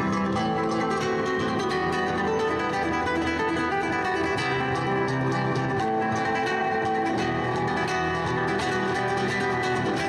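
Background music led by a plucked acoustic guitar, playing steadily.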